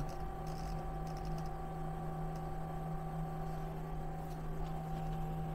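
Steady electrical hum of a Haas ST-10 CNC lathe standing with its spindle stopped, with a few faint clicks from the hand-jog controls as the tool turret is inched toward the bar.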